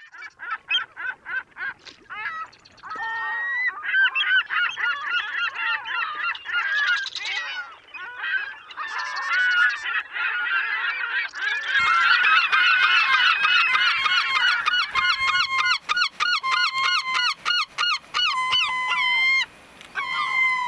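Many short, repeated animal calls overlapping, like a flock of birds calling; they grow denser and louder about four seconds in and again about twelve seconds in, and thin out near the end.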